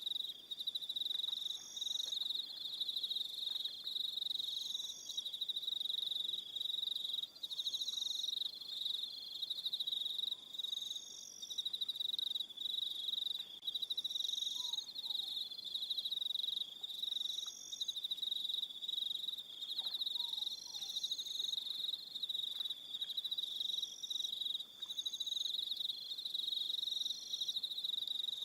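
Evening crickets trilling in a loud unbroken high chorus, with a higher-pitched insect chirping in short bursts every couple of seconds. A couple of faint short calls sound lower down, about halfway through and again later.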